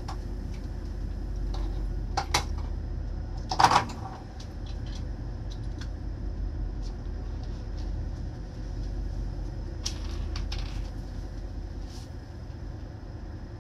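Steady low rumble aboard a tanker under way at sea, with a few sharp knocks and clicks on top, the loudest about four seconds in.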